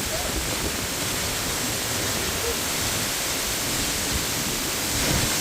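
Steady rushing of the first Sipi waterfall's falling water, with wind buffeting the microphone.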